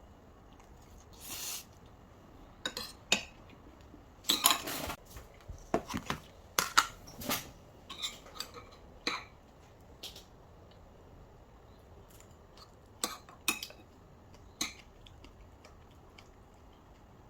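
Dishes and cutlery clinking and knocking together in irregular sharp strikes, busiest a few seconds in and tapering off with a few last clinks near the end.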